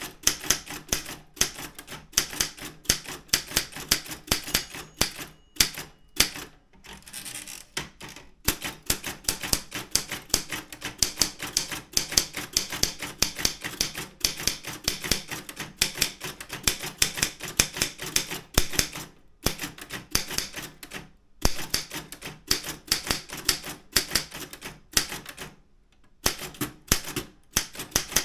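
Daro Optima M16 manual office typewriter being typed on: quick key strikes, several a second, in steady runs broken by a few short pauses.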